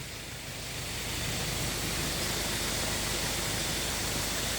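Steady rushing of a flowing stream, rising about a second in and then holding level.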